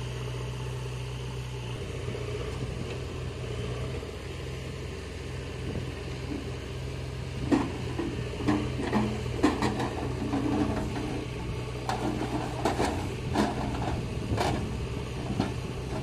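Tractor engine running steadily. About halfway through, irregular clanks and knocks join it as the loaded trolley tips and its soil load slides out.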